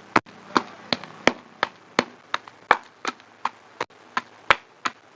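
A pestle pounding a moist bait mash in a stone mortar: a steady run of sharp knocks, about three a second.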